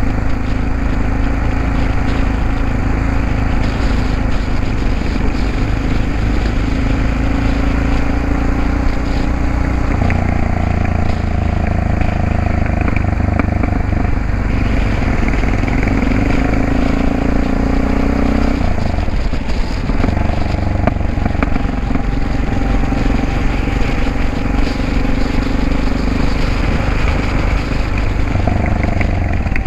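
Yamaha XT660X's single-cylinder four-stroke engine and exhaust running under way at a steady cruise. The note shifts pitch about ten seconds in and dips briefly around nineteen seconds in.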